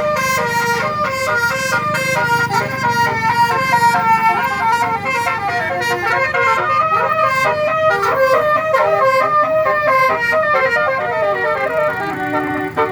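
A tourist bus's telolet basuri horn, several electric trumpet horns playing a fast melody of short stepping notes, over a low rumble.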